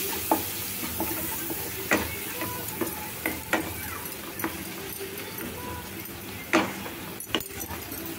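Butter sizzling in a nonstick kadai while a wooden spatula stirs flour into chopped garlic and spring onion, cooking it into a base for the sauce. The spatula scrapes and knocks against the pan about every second, with two louder strokes near the end.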